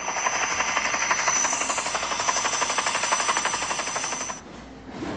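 Helicopter flying, its rotor blades beating in a rapid, even chop with a steady high turbine whine over it. It stops about four seconds in.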